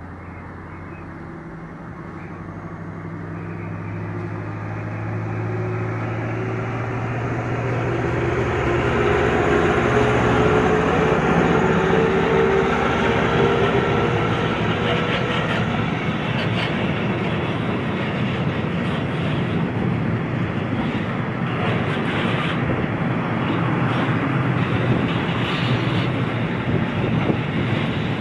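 DB class 294 diesel-hydraulic shunting locomotive approaching and passing with its engine running; the engine note rises and grows loud as it nears. It is followed by a freight train of covered wagons rolling past, wheels clattering over the track.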